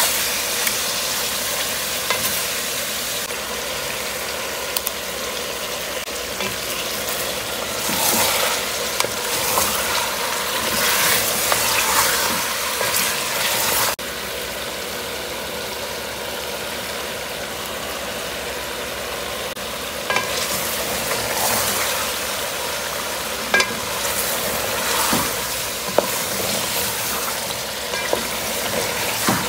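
Chicken pieces frying in hot oil in a metal pot: a steady sizzle, with repeated bursts of a spatula stirring and scraping against the pot and a few sharp clacks. The sizzle drops a little about halfway through.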